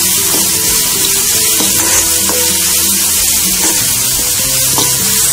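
Chopped onion and green chilli with cumin and fennel seeds sizzling steadily in hot oil in a kadhai on a medium flame, with a metal spoon stirring and scraping the pan in light clicks.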